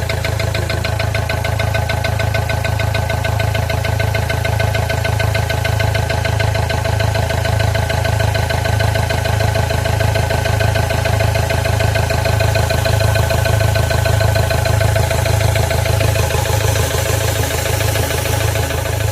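Ford Ranger 2.2-litre diesel engine idling steadily with a fast, even knocking tick over the engine hum: the knocking sound that is the reason for the recording.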